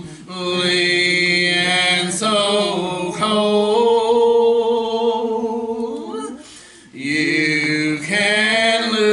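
A small group of men singing a gospel song in a congregation, drawing out long held notes, with a short break for breath about seven seconds in.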